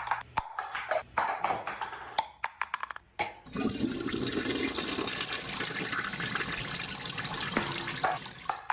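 A toilet flushing: a steady rush of water lasting about five seconds, starting a few seconds in after a run of sharp clicks and knocks.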